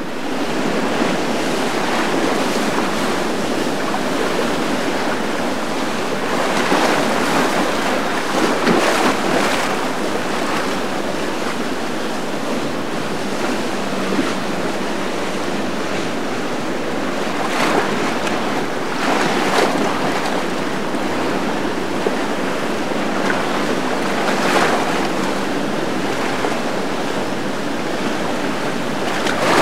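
Rushing, churning water of a fast-running canal current, with wind buffeting the microphone; the noise swells and eases several times.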